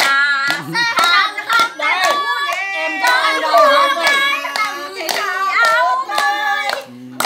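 Several women singing together and clapping their hands in rhythm.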